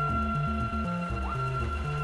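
Background music with a steady beat, over the whine of the CNC router's stepper motors: a steady high tone that glides down and back up several times as the axes slow and speed up.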